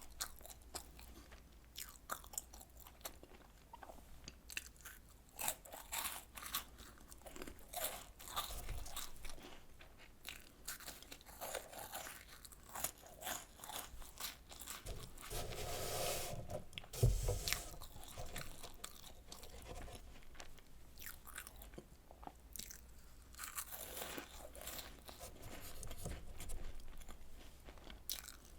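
Chewing and crunching of Home Run Ball, small chocolate-filled puff biscuits crisped in an air fryer, with many sharp crackles throughout. A single thump about seventeen seconds in is the loudest sound.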